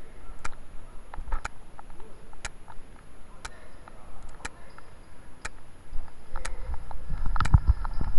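Sharp ticks at a steady pace of about one a second, with fainter scattered knocks between them and a few dull thumps near the end.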